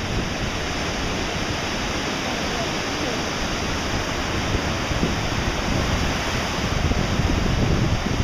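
Ocean surf washing onto the beach, with wind on the microphone. The noise is steady and grows a little louder near the end.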